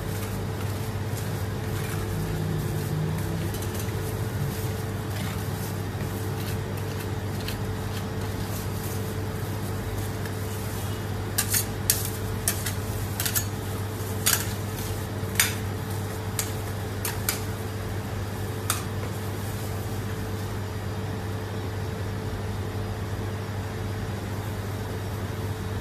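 Metal spatulas scraping and spreading ice cream across a stainless-steel cold plate, with a run of sharp metal-on-metal clicks about halfway through. A steady low hum runs underneath.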